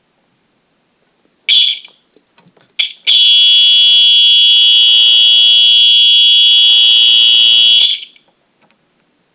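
Simplex fire alarm horn sounding on the California code: a short blast about a second and a half in, a brief blip just before three seconds, then a steady loud blare for about five seconds that cuts off suddenly. The pattern comes out irregular, which the tester puts down to the wiring.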